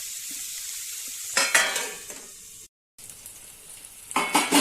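Fenugreek leaves frying with a steady sizzle in a pan of oil, with a short metal clatter about a second and a half in. The sound cuts out briefly in the middle, and near the end a metal spatula clatters and scrapes against the pan as the greens are stirred.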